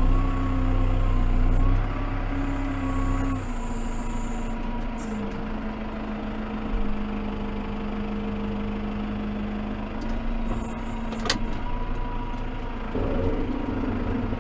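Massey Ferguson tractor's diesel engine running, heard from inside its cab: the revs step down a few seconds in and then hold steady. There is a single sharp click about eleven seconds in, and the engine gets louder again briefly near the end.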